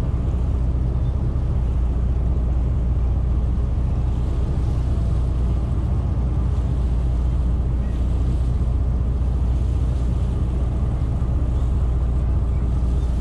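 Engines of a large powered passenger catamaran running with a steady low drone, heard from the open deck, with some light water and wind hiss over it.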